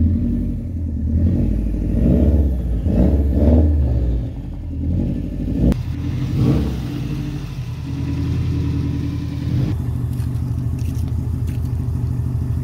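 Subaru WRX STI's turbocharged flat-four engine revving and running as the car is driven, with the pitch rising and falling, then settling to a steady idle a little before the end.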